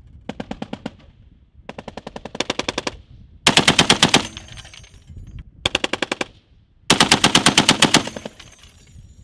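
M2 .50-calibre heavy machine gun firing five short bursts of automatic fire at about eight to ten rounds a second, the last three bursts much louder than the first two.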